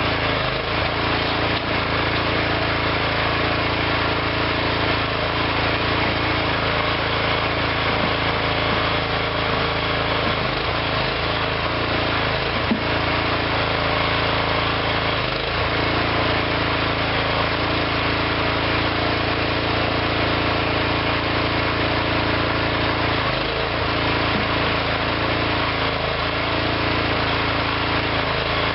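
Engine of a small hydraulic backhoe running steadily, with a brief dip in its note a few times.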